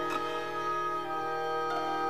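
Backing music: sustained chords held under a melody, with a few soft note changes.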